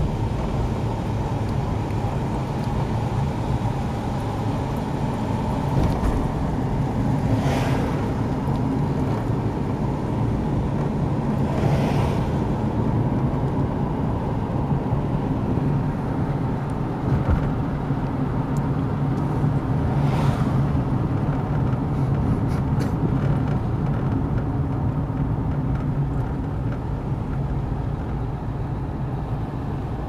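Car engine and tyre noise heard from inside the cabin while driving at a steady speed, with a few brief whooshes about 7, 12 and 20 seconds in.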